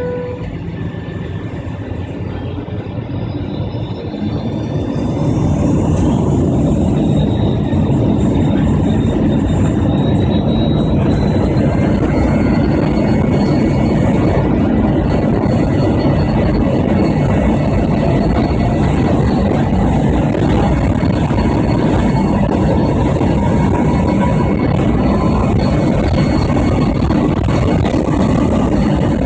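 An Avro RJ100's four Honeywell LF507 turbofan engines, heard from inside the cabin, spool up to takeoff thrust about five seconds in with a rising whine. They then run at a steady, louder level through the takeoff roll.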